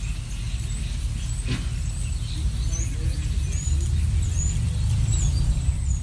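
Songbirds chirping in short high notes, repeated several times, over a steady low rumble. A single click sounds about one and a half seconds in.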